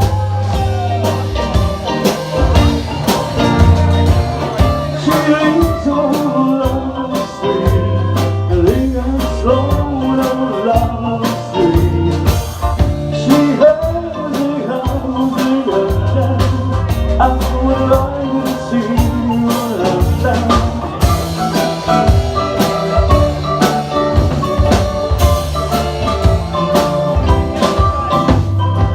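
Live rock band playing an instrumental passage: drum kit keeping a steady beat under a bass line and a melodic lead line with bending notes.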